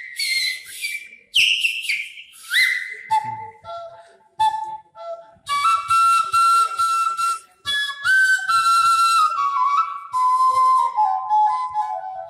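Bamboo transverse flute (murali/bansuri) played solo into a microphone: a melody of breathy phrases with short pauses, the first notes high and gliding, then held notes that step downward near the end.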